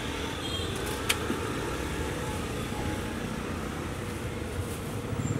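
Street traffic running steadily, a low engine hum with a sharp click about a second in.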